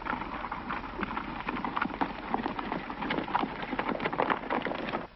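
Horses galloping: a rapid, dense clatter of hoofbeats.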